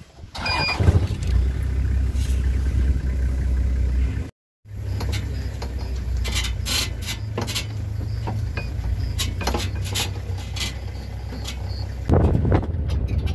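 Safari 4x4's engine running as the vehicle drives, a steady low rumble with scattered clicks and rattles over it. The sound breaks off for a moment about four seconds in and is louder near the end.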